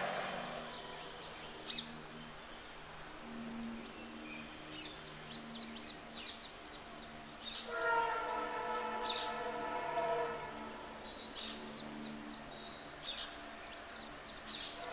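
An approaching Indian Railways WDP4 (EMD GT46PAC) diesel-electric locomotive: a faint, low pulsing engine hum throughout, with the locomotive's multi-tone horn sounding for about three seconds about halfway in. Birds chirp in short calls over it.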